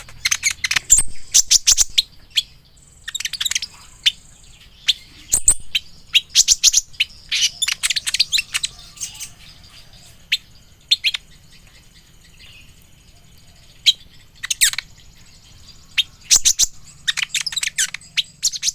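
Kolibri ninja sunbird singing in bursts of rapid, high-pitched twittering chirps, broken by short pauses.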